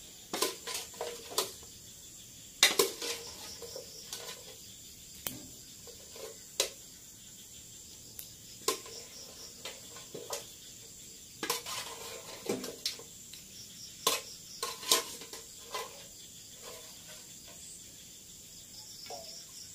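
Metal ladle clinking and scraping against an aluminium cooking pot as boiled chicken pieces are scooped out into a wok, in irregular sharp clinks, sometimes several close together. A steady high chirring of crickets runs underneath.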